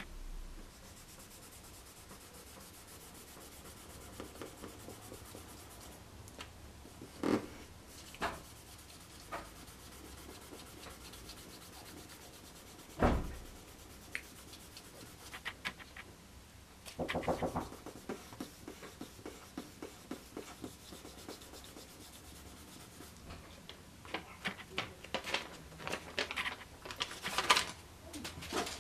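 Paper rubbing and sliding against a plywood tabletop under the hands, with a few sharp knocks, the loudest about halfway through, and a run of quick small taps near the end as thin wooden fin pieces are handled on the table.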